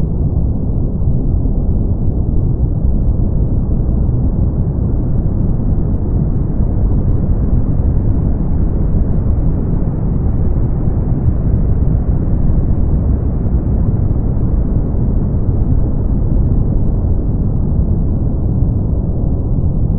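Synthetic brown noise: a steady, deep, muffled rushing with no tones or events in it, heavy in the bass and with nothing bright or hissy on top.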